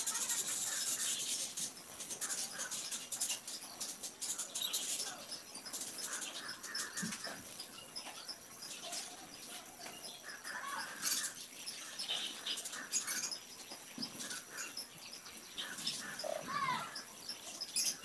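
4B graphite pencil scratching on paper in short strokes, with scattered animal calls in the background, among them a short gliding call near the end.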